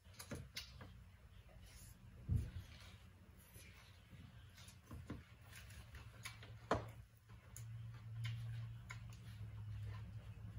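Quiet, scattered clicks and soft knocks of hands and food against plastic bowls during eating by hand. A low hum comes in about eight seconds in.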